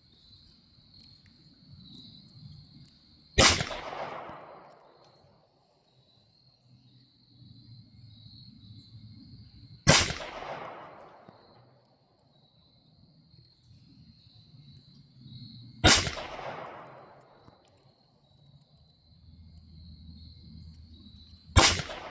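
Four single shots from a Taurus TX22 Competition .22 LR pistol, fired slowly about six seconds apart, each with a short decaying echo. Crickets chirp steadily in the background.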